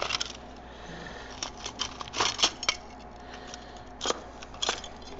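Fishing tackle rummaged in a plastic tackle box as a metal dodger is pulled out: a string of short clicks and clinks, busiest about two seconds in, then a couple of single clicks.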